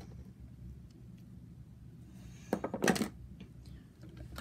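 Small plastic hand-sanitizer bottles clicking and clattering against each other as they are handled, with a louder short clatter about two and a half seconds in, over a low steady hum.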